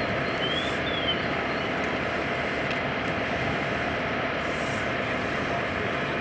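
Steady drone of a running engine, even and unchanging, with a faint steady hum in it. A few short, faint high chirps sound in the first second or so.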